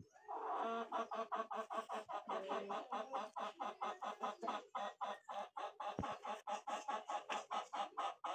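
A chicken clucking in a fast, even run of about five or six clucks a second, starting about half a second in.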